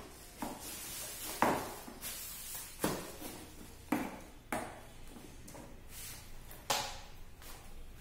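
Plastic packaging rustling and crinkling as an electronics kit is unwrapped, with about half a dozen sharp clicks and knocks from the plastic kit case being handled and opened.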